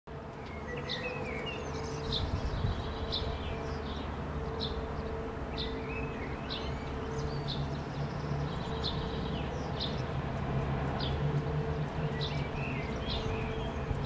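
House sparrow chirping, about one sharp chirp a second, with a few short warbled phrases from another songbird in between, over a steady low hum and an on-off drone from construction work.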